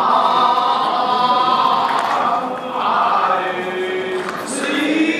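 A group of voices chanting together in long held notes, in several phrases with short breaks between them.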